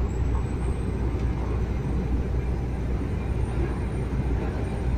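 Steady low rumble of road and engine noise heard from inside a vehicle's cabin while it cruises along a highway.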